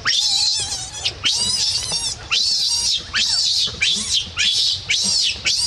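Baby macaque screaming, a rapid run of shrill, high-pitched cries about two a second, many falling in pitch.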